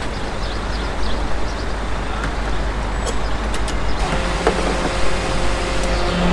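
Fuel pump nozzle handled and pushed into a car's filler neck with a few clicks; about four seconds in a steady pump hum starts as refuelling begins, over steady traffic noise.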